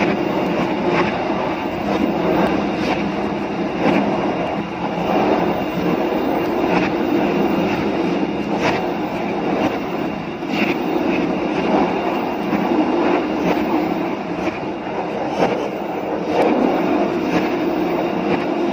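Train running along the track: a steady rumble of wheels on rails, with a sharp click every second or two.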